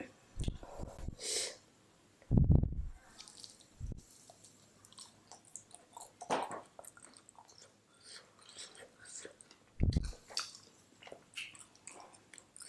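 Close-up eating sounds: a person chewing and biting into saucy fried chicken lollipops, with many small wet clicks and smacks. A few louder low thumps stand out, the loudest about two and a half seconds in.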